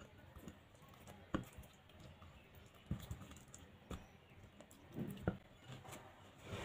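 Hands rubbing marinade into raw chicken drumsticks in a glass bowl: faint, irregular clicks and taps as the meat and fingers knock against the glass, about one every second.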